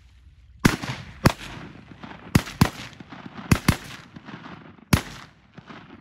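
A volley of about seven shotgun shots over roughly four seconds, fired at waterfowl over a pond, some in quick pairs, each with a short echo.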